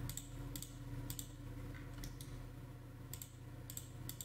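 Irregular clicks of a computer mouse and keyboard, about eight over four seconds, as the program is being worked, over a faint steady low hum.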